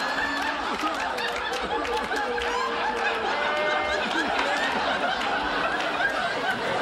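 Studio audience laughing: many voices overlapping in one long, steady wave of laughter.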